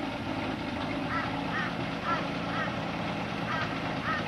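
1956 Ford Zephyr Mk II's straight-six engine idling steadily, loud and noisy from holes in the exhaust pipe near the engine. Short high calls from an animal sound over it, about two a second, from about a second in.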